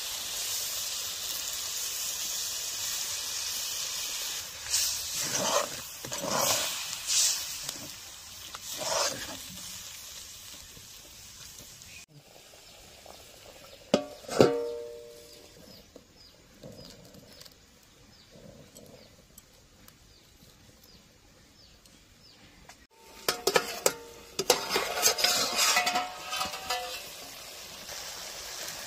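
Curry sizzling and hissing in a hot metal kadai as water is poured in, then stirred in several bursts. About halfway, a steel plate lid clangs down onto the kadai with a short ring. Near the end, a metal ladle clatters and scrapes in the pot as the curry is stirred.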